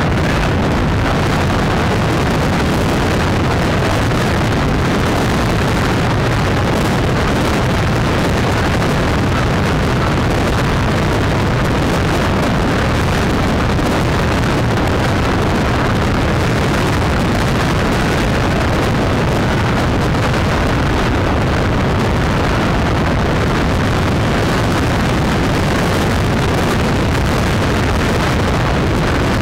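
Steady engine drone and wind rush on the microphone of a vehicle cruising at motorway speed among a convoy of motorcycles. The sound holds level, with no revving or sudden events.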